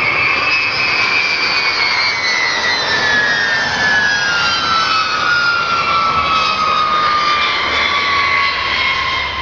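Boeing B-52 Stratofortress's eight jet engines running as the bomber comes in low with gear down and lands: a loud, steady roar with a high whine that falls in pitch from about two seconds in as it passes.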